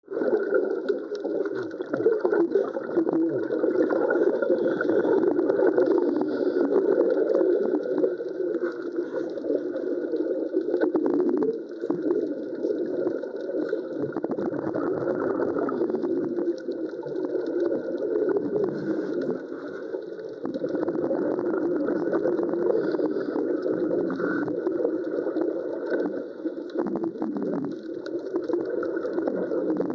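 Underwater wet welding: continuous bubbling and gurgling with irregular crackle, the arc and its gas bubbles heard underwater.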